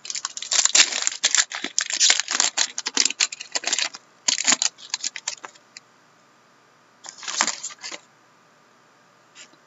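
Crackling crinkle of a trading-card pack wrapper being torn open and handled, dense for about four seconds, then two shorter bursts of crinkling.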